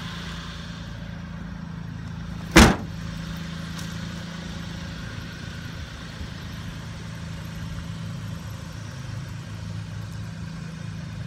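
Mitsubishi Minicab kei truck's small three-cylinder engine idling steadily, with one loud door slam about two and a half seconds in.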